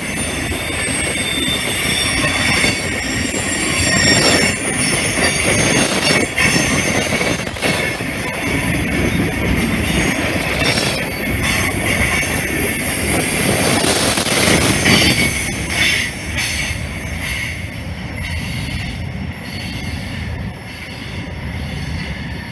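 Freight train tank cars rolling past on a curve: a steady rumble of wheels on rail with wheel flange squeal and occasional clacks over rail joints. About two-thirds of the way in it grows quieter and the squeal fades.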